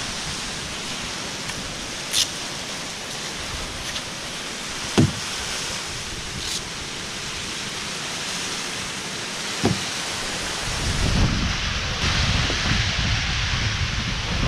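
Steady hiss of small waves washing onto a sandy beach, with three short knocks, the middle one the loudest. From about ten seconds in, gusts of wind buffet the microphone over the surf.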